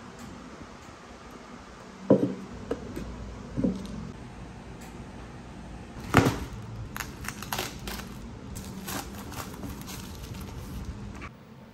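Hard plastic knocks as the clear cup and white base of a Hamilton Beach personal blender are handled and set down on a table. There are three clear knocks, the loudest about six seconds in, followed by a run of light clicks and crinkling.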